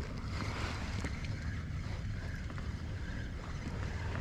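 Wind buffeting the microphone as a low, steady rumble over open water from a kayak, with a few faint clicks.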